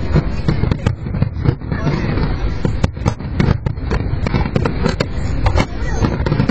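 Aerial firework shells bursting in quick succession, many sharp reports and crackles over a continuous low rumble.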